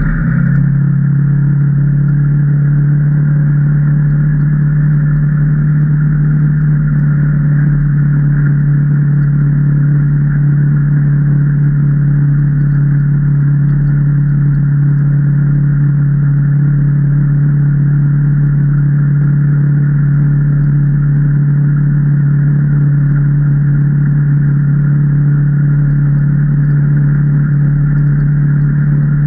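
Can-Am Maverick Trail 800 side-by-side's V-twin engine running at a steady, unchanging pitch while under way.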